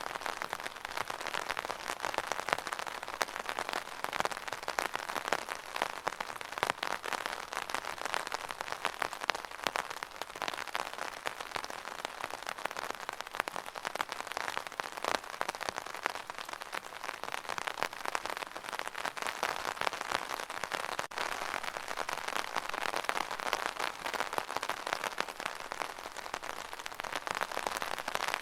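Steady rain pattering on an umbrella's fabric canopy: a dense, even spatter of drops with many small individual ticks.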